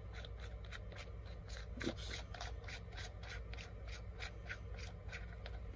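Metal parts of a Milwaukee 2754 impact wrench's front housing and hammer mechanism being turned and worked by hand, giving an even run of small clicks about four times a second, with a slightly heavier knock about two seconds in.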